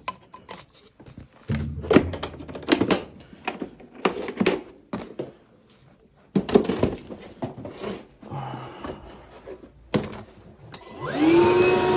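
Scattered clicks and knocks of hands handling tools and equipment, then near the end a steady hum that rises in pitch as it starts and cuts off abruptly.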